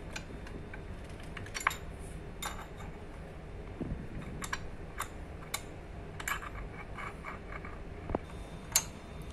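Light, irregular metal clicks and ticks of a hex key being turned to tighten a pedal bolt on a steel elliptical frame, with two sharper clicks about one and a half seconds in and near the end.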